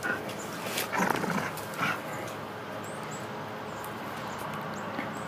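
Two dogs tugging at a blue fabric toy: a few brief dog noises and scuffling paws on concrete in the first two seconds, then a low steady background.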